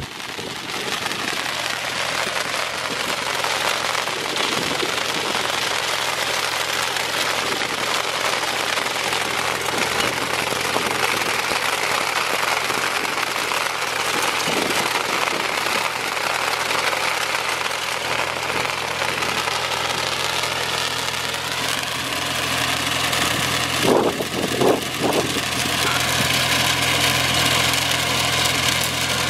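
Vineyard tractor's diesel engine running steadily while its rear-mounted Ilmer under-vine tillage implements work the soil, giving a constant rushing mechanical noise. A few loud knocks sound late on.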